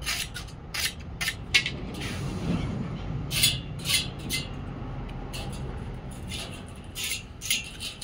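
Hand file scraping on the end of a steel sawmill band-saw blade in short, irregular strokes, with small metallic clinks. The blade end is being filed to prepare it for joining.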